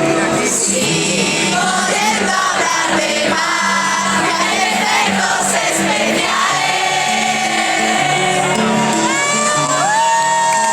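Live band playing with many voices singing along, recorded from within a concert crowd; near the end, high rising whoops and shouts from the crowd.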